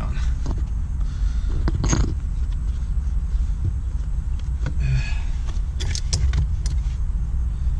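Leather shifter boot and its plastic trim surround being fitted back down over the shift lever: a few light clicks and rustles, about two seconds in and again around five to six seconds in, over a steady low rumble.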